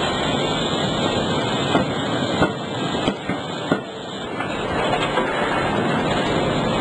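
C92K-31.5 CNC fully hydraulic die forging hammer striking a hot workpiece in the closed die: four sharp blows about two-thirds of a second apart, starting a little under two seconds in, over steady, loud forge-shop noise.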